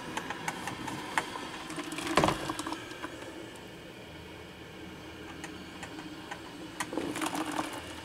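1985 Black & Decker 8-cup drip coffee maker brewing: a steady low hum with scattered ticks, and brief noisy bursts about two seconds in and again near the end.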